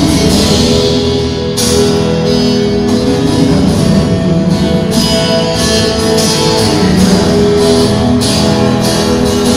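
Live rock band playing, with electric guitars, bass guitar and drums.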